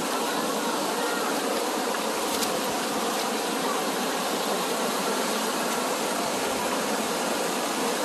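Shallow mountain stream rushing over rocks and pebbles, a steady splashing flow of water.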